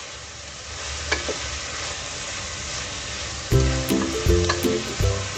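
Eggplant and hyacinth bean masala sizzling as it fries in oil in a pan, stirred with an occasional click of the spoon. About three and a half seconds in, background music with a bass line comes in over it and is louder than the frying.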